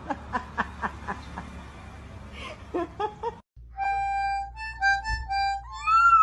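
Short squeaky calls repeated about four times a second, then after a sudden cut a simple tune of steady held notes, with a rising-and-falling slide near the end.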